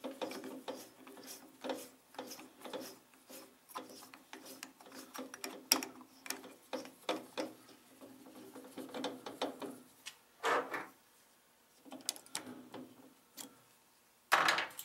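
Drill press chuck being opened and tightened to swap a quarter-inch bit for a hole saw: many irregular quick metallic clicks and ratcheting. Near the end there are two louder short rustling bursts.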